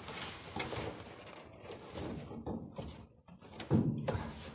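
Scattered small knocks, scrapes and straw rustling from a hand working in the cramped inside of a combine harvester, fitting a grease gun to a grease point.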